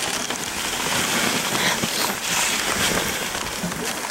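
Dog sled moving along a snowy trail: a steady hissing, crunching noise of the runners and the dogs' paws on the snow.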